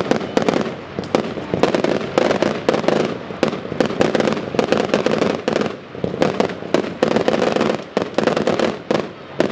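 Fireworks going off in rapid, irregular succession: many sharp bangs and pops, several a second, over a continuous hissing rush of sparks.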